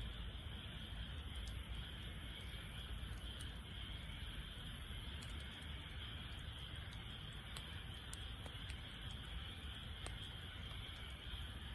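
Wood fire burning in a Snow Peak fire pit, with scattered small crackles and pops over a steady hiss.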